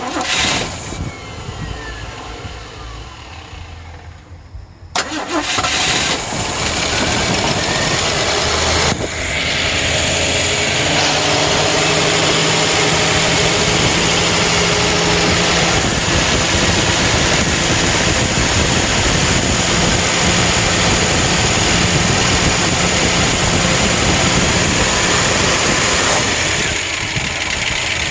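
Ford 351 Windsor V8 on a newly fitted replacement carburetor starts about five seconds in, then runs steadily. It gets louder around ten seconds and drops back a little near the end.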